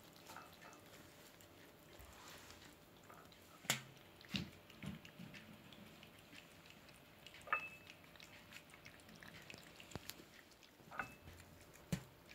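Cats eating their food, faint chewing with scattered soft clicks and taps spread through the quiet.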